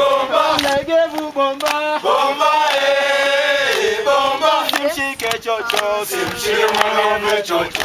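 Group of African mountain guides and porters singing a chant together in male voices, with hand claps.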